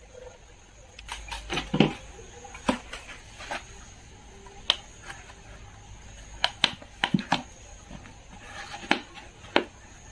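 Hands fitting a new paper cone into a 15-inch loudspeaker's metal basket: scattered sharp clicks and knocks, about ten in all, with a brief rustle of the cone near the start.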